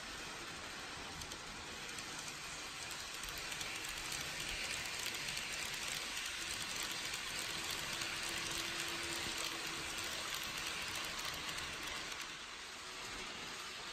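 KATO N gauge E001 TRAIN SUITE Shiki-shima model train running past on the layout track: a steady rolling hiss of small wheels on the rails that swells as the train passes close, with a faint hum near the middle, then drops off about twelve seconds in.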